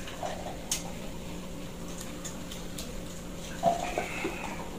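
Faint pouring of soda from a glass bottle into a cup, with a few light clicks of handling at the table and a brief slightly louder sound about four seconds in.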